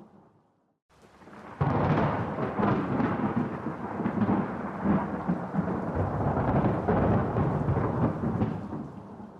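Thunder: a sudden clap about a second and a half in, then a long rolling rumble that slowly fades near the end. It follows a brief near-silent gap.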